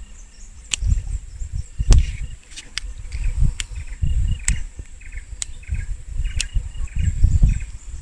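Tropical forest ambience: a steady high insect drone with short chirping calls repeated several times a second. Over it are irregular low rumbles and about eight sharp clicks close to the microphone.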